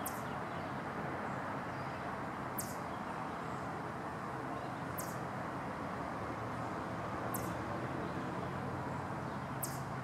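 Eastern chipmunk giving its repeated alarm call: five short, sharp, high-pitched chucks, evenly spaced about every two and a half seconds, over a steady background rumble.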